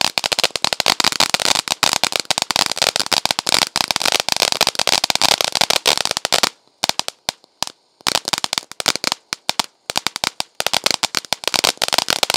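Grogu ground fountain firework spraying sparks with dense, rapid crackling from inside the fountain. The crackling breaks off for about a second and a half a little past halfway, then starts up again.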